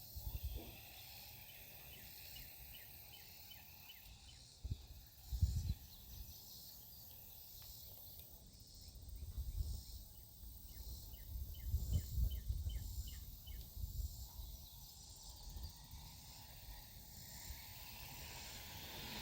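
Outdoor ambience: low gusts of wind buffeting the microphone, loudest about five seconds in and again around twelve seconds, over rows of short, evenly repeated high chirps from an insect or bird.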